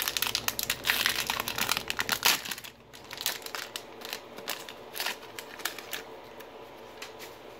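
Topps baseball card pack's foil wrapper crinkling loudly as it is torn open, then lighter, scattered crinkles as it is peeled back, dying out about six seconds in.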